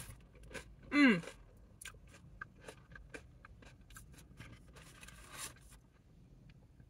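Eating sounds: a short hummed 'mm' with falling pitch about a second in, then a run of small mouth clicks from chewing, and the rustle of a paper food boat holding a sauced chicken wing as it is picked up, near the end.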